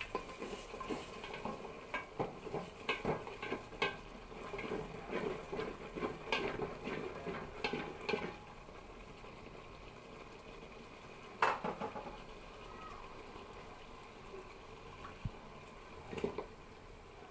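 Kitchen handling sounds: a busy run of small clicks, clatters and rustles from utensils and dishes for about eight seconds, then a quieter stretch broken by one sharp knock and a couple of light clicks near the end.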